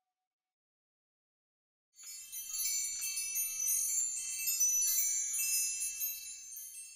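Silence, then about two seconds in a shimmer of many high, tinkling metal chimes ringing over one another, like wind chimes, thinning out near the end.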